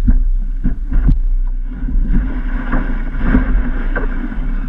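Plastic kayak being pulled along a wooden dock by its bow grab handle, with the sound picked up through the bow-mounted camera. A few sharp knocks and rattles in the first second or so, then a steady rough rumbling noise as the hull moves over the boards.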